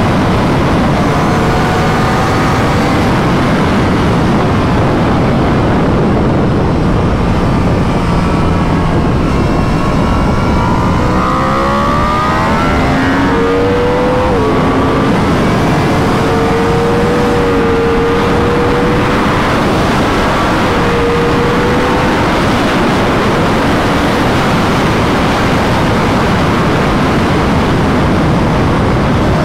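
2021 Yamaha R1's crossplane inline-four through an Akrapovic full titanium exhaust at track speed, under a loud, even rush of wind noise. Midway the engine pitch climbs and falls, then holds steady for several seconds.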